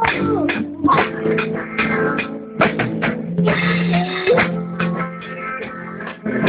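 A band playing a song, the drum kit close-up and loudest: rapid drum beats and cymbal crashes over guitar.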